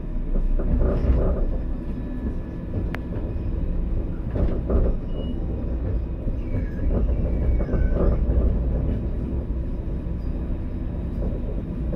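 Alstom Citadis tram running on the rails: a steady low rumble, with a few faint voices in the background and a single sharp click about three seconds in.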